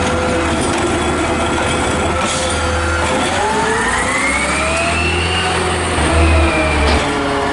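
McNeilus ZR side-loading garbage truck with a natural-gas engine running at idle, then revving up with a rising whine about three seconds in as the automated arm lowers the emptied cart. The engine gets louder near the end as the truck pulls away.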